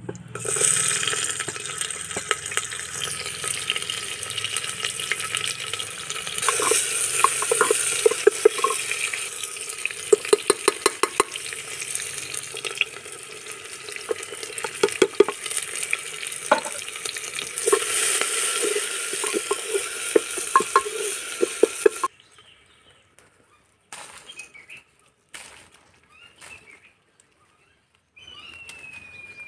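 Sliced onion sizzling loudly in hot oil in a metal pot, with many sharp clicks and scrapes of stirring against the pot. The sizzling cuts off suddenly about 22 seconds in.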